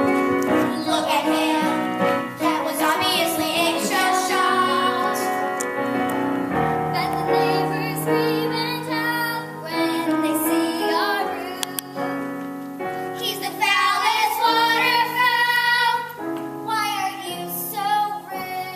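Young cast voices singing a musical-theatre song over instrumental accompaniment, with long held notes sung with vibrato.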